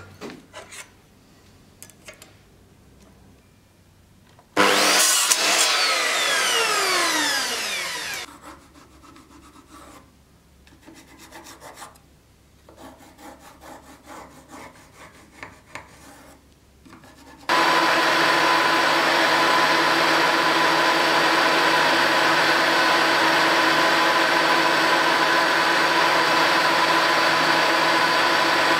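Light handling clicks and scraping, broken a few seconds in by a machine that runs loudly for about four seconds and then winds down, falling in pitch. From about two thirds of the way in, a milling machine runs steadily and loudly, its end mill cutting into a strip of wood for a sword's handle core.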